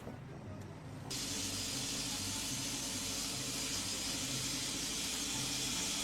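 A steady hiss over a low machine hum; the hiss starts abruptly about a second in.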